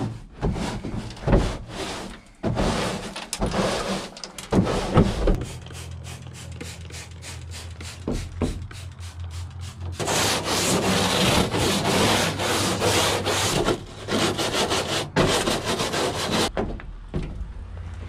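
Stiff-bristled scrub brushes scrubbing a pickup's ribbed plastic bed liner and then its tailgate in back-and-forth strokes, the strokes coming quickest and densest about ten seconds in before stopping near the end.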